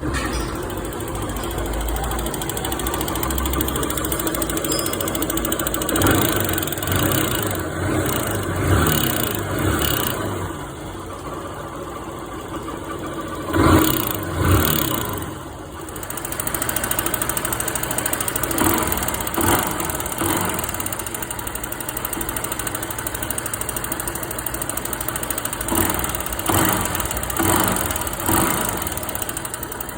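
Honda Titan 150 single-cylinder motorcycle engine running with a mechanical knocking noise, the throttle blipped several times. The noise comes from a loose exhaust valve seat in the cylinder head.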